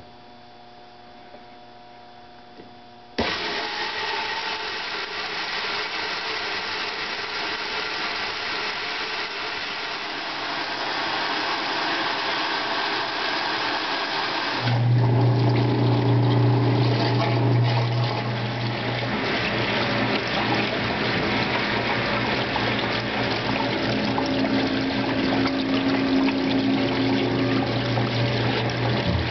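1958 General Electric Filter-Flo washing machine: water suddenly starts rushing into the tub about three seconds in. About halfway through a steady low motor hum sets in and stays, while water keeps pouring and splashing into the tub.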